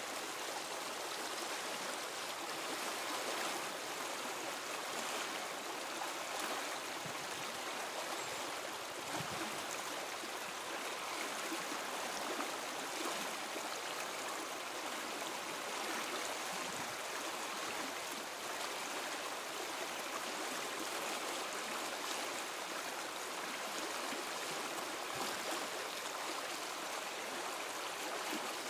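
Flowing river water: a steady, even rush of running water that does not let up.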